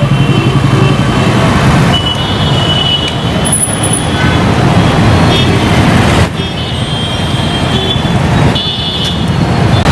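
Busy street traffic: engines of cars and motorbikes running past close by, with several short horn toots.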